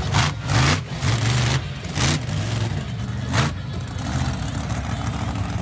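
Monster truck engine running and revved in about four short, loud bursts over the first three and a half seconds, then settling to a steadier drone.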